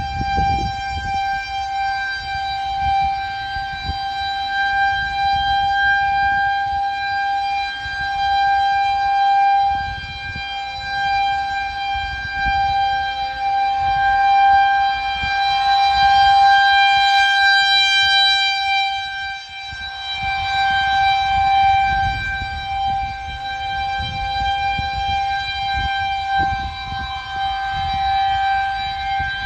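Federal Signal 2001-130 outdoor warning siren sounding a steady, unchanging tone for a tornado warning, swelling and fading in loudness as it rotates.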